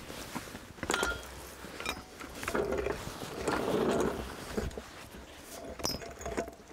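Red trolley floor jack being wheeled over concrete paving and set in place, with metal clanks and knocks from its frame and long handle as the handle is raised and worked.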